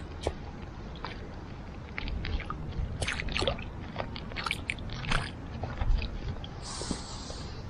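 Irregular wet squishes and scrapes in waterlogged mud, getting busier about two seconds in, with a short hiss near the end.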